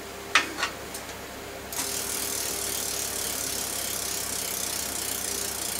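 Two sharp clicks as the crank is worked on the upturned mountain bike. Then, from about two seconds in, the newly fitted rear freewheel's pawls ticking rapidly and continuously as the rear wheel spins freely.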